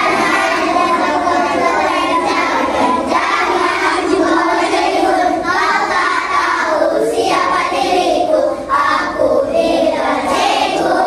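A group of young children singing together as a choir.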